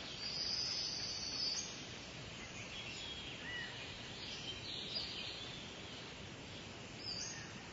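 Outdoor natural ambience: birds chirping with short high calls at intervals over a steady background hiss, and a high buzzing call about half a second in, lasting over a second.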